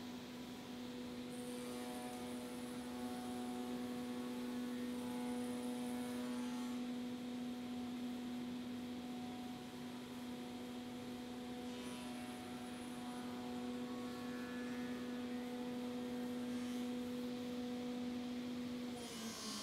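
Spindle moulder with a power feeder running with a steady motor hum, a busier set of tones laid over it twice as workpieces are fed through to cut floorboard tongues. Near the end the machine is switched off and its hum falls away as it winds down.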